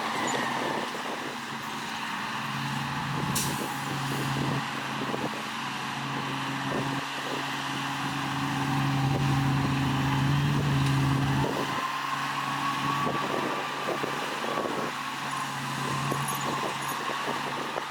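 Heavy diesel earthmoving machinery working: a steady low engine note that grows stronger for several seconds, then eases off, with a thin whine rising and falling and frequent short rattling knocks. One sharp click a few seconds in.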